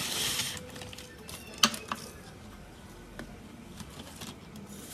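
Kitchen handling sounds while poha is measured out. A crinkly plastic-packet rustle dies away in the first moment, then there is one sharp click about a second and a half in and a few lighter taps.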